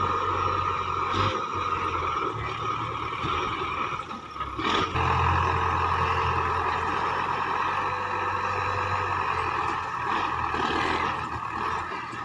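Belarus tractor's diesel engine running under load as its front loader digs into a heap and lifts. The engine note dips briefly about four seconds in, with a short click, then picks up again.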